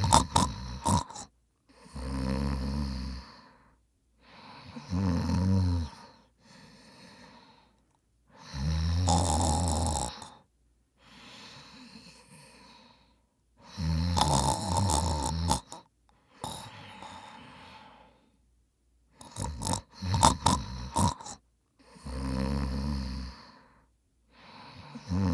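A man snoring in deep sleep. Loud snores come about every four seconds, with quieter breaths between them, and there are short spluttering clicks at the start and again about twenty seconds in.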